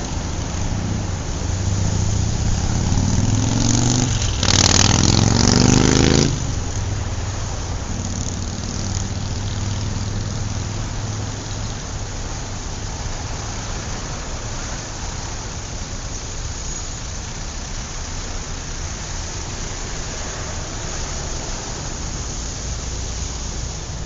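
City street traffic: a steady rumble and hiss of cars driving past. About three seconds in, one vehicle passes close by with its engine note rising as it accelerates; it is the loudest moment and ends sharply about six seconds in.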